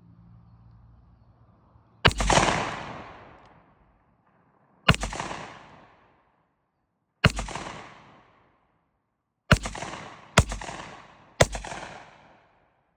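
Six shots from a Ruger Redhawk .357 Magnum revolver firing 125-grain Magtech loads, each crack trailing off in a long echo. The first three come about two and a half seconds apart, and the last three come quickly, about a second apart.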